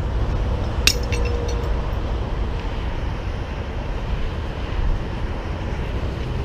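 Steady low rumble of running vehicle engines, with one sharp metallic clink about a second in.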